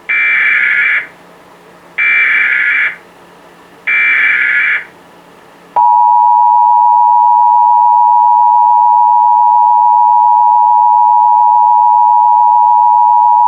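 Emergency Alert System SAME header: three loud one-second bursts of warbling digital data tones, about two seconds apart, followed about six seconds in by the steady two-tone EAS attention signal, announcing a Child Abduction Emergency alert.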